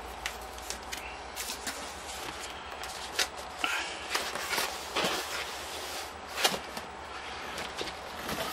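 Cardboard boxes being handled and slid against each other: scattered rustles, scrapes and light knocks, over the steady noise of an electric fan.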